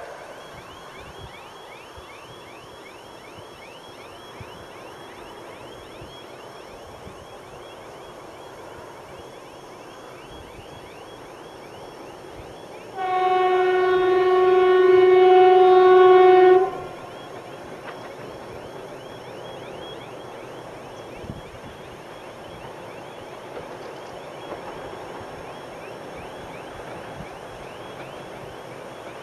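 Soviet 2TE116 freight diesel locomotive approaching with its diesel engines running, and one long blast on its air horn, a single steady low-pitched note of about three and a half seconds, a little under halfway through.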